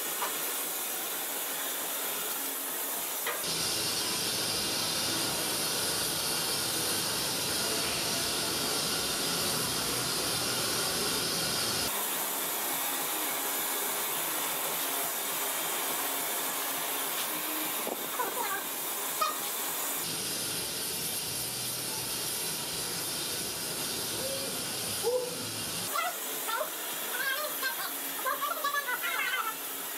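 Steady hiss of a gas-fired crucible furnace burner during a bronze pour, changing abruptly a few times, with a few small clicks and crackles near the end.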